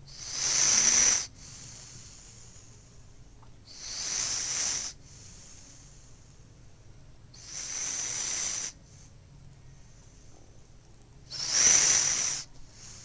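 Snoring: four hissy breaths, each about a second long, coming in a steady rhythm about every three and a half to four seconds.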